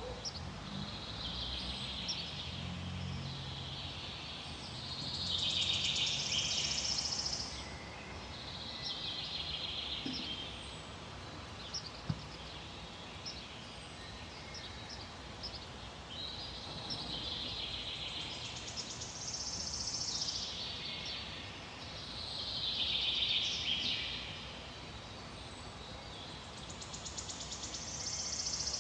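Songbirds singing in a forest: song phrases of a second or two repeat every few seconds, some ending high, over a steady background hiss.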